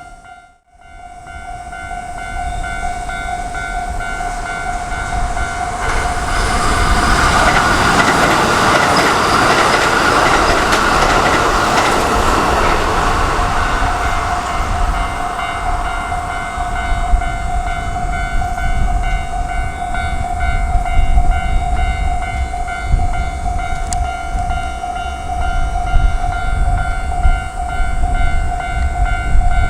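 Japanese level-crossing warning bell ringing steadily throughout while a train passes over the crossing. The train noise swells loudly from about six seconds in and eases after about seventeen seconds, giving way to a low rumble with irregular wheel clacks.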